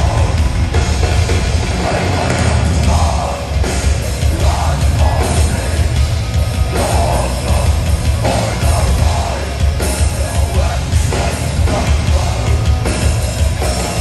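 A live heavy rock band playing loud through a festival PA: distorted electric guitars and a drum kit, with a heavy, booming low end.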